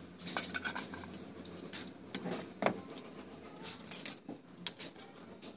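Small metal parts of an antique hurricane lantern clinking and clicking as they are handled, with a few sharper clicks.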